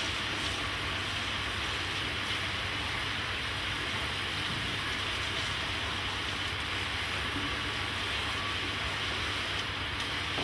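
Steady rushing hiss of steam pouring out of the open, hot pot of a copper pot still.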